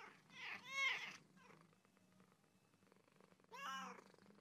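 A cat meowing twice: a loud meow that rises and falls in pitch about a second in, and a second, shorter meow near the end.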